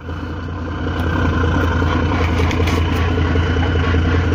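Boat engine running steadily with a deep, even drone that builds a little over the first second.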